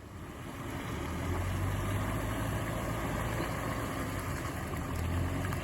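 Four-wheel-drive vehicle's engine running at low revs, growing louder over the first second or so, then holding steady.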